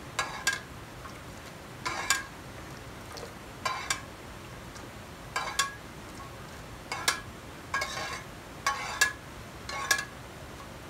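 Metal spoon clinking against a pot as hot caramelized sugar syrup is stirred and lifted to cool it: short ringing clinks, often two or three together, about every second and a half.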